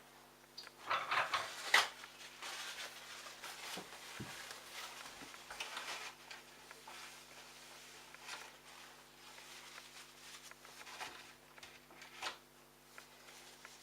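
Small hard plastic parts being handled: a quick run of clicks and knocks about one to two seconds in, then rubbing and scattered light taps. Under it runs a steady low hum.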